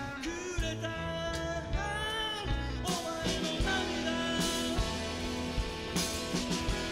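Background music: a rock-style song, a melody line over guitar with a steady drum beat.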